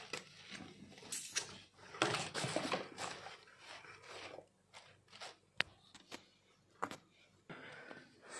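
Rustling and crinkling of a cotton T-shirt and its plastic and paper packaging as the shirt is handled and unfolded, in irregular bursts, with two sharp clicks a little after the middle.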